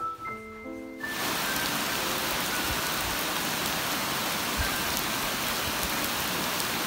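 Steady rain falling on garden foliage and ground, a dense even patter with a few nearer drops ticking now and then. A short melodic music tune ends about a second in, as the rain begins.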